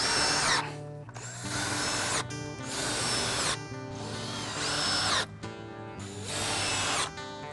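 Cordless drill running in five short bursts into a wooden board, each burst a second or less with a high whine.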